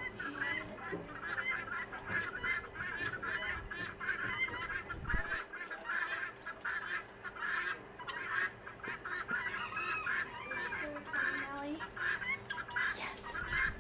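A flock of guineafowl calling, a dense, continuous chatter of short repeated calls.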